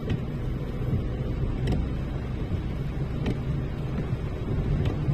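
Car driving slowly on a wet road, heard from inside the cabin: a steady engine and tyre rumble, with a faint click about every second and a half.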